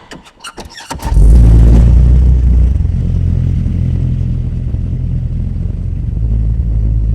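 Car engine cranking on the starter with rapid chugging strokes, catching about a second in with a brief loud flare, then settling into a steady idle.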